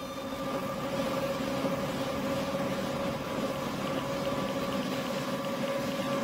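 Electric coconut milk press running steadily, a constant machine hum as grated coconut is fed through it.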